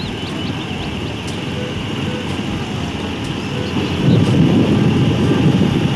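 Single-drum road roller's diesel engine running as the machine moves, a steady low rumble that grows louder about four seconds in.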